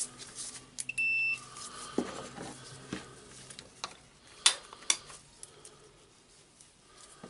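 Clamp multimeter's continuity tester giving one short, steady beep about a second in, the sign of a closed circuit through the rotary hammer's cord and switch. Scattered clicks and taps of the probes and plastic housing being handled follow.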